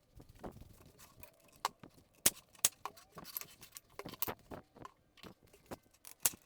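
Irregular light taps, clicks and knocks of pine boards and tools being handled while two pieces are glued together, a few sharper knocks among them.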